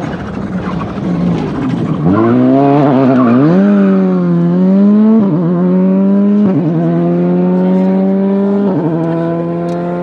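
VW Polo GTI R5 rally car's 1.6-litre turbocharged four-cylinder accelerating hard on loose gravel. After a rough, noisy first two seconds the engine note climbs steadily and drops sharply at three upshifts in the second half.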